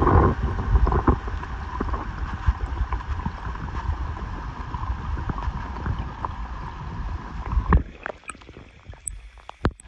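Creek water washing through a gold sluice box, heard through a submerged microphone: a muffled, low rumbling wash with many small knocks. About eight seconds in, the microphone comes out of the water and the sound drops suddenly to a quieter trickle with a few clicks.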